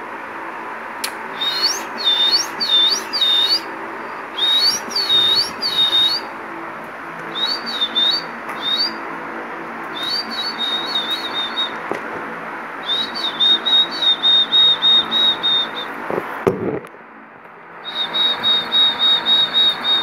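Lutino cockatiel whistling in short repeated phrases of chirped notes, with pauses between phrases and runs of quick repeated notes in the second half, over a steady background hiss. About three-quarters through, a brief thump and a moment of quiet.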